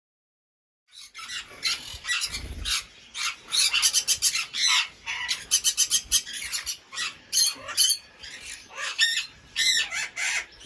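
Conure parrots squawking: a rapid run of harsh, short calls that starts about a second in and keeps on, with several calls overlapping.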